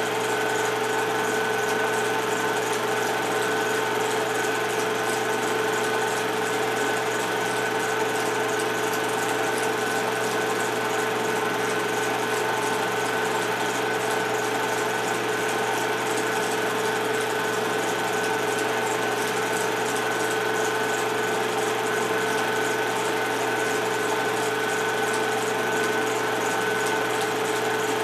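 Film projector running with a steady mechanical whir and a constant hum of two tones, unchanging throughout.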